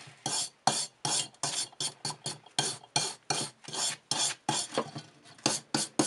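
Brass-bristled wire brush scrubbed back and forth over a rusty cowbell, about three rasping strokes a second, knocking off loose dirt and rust.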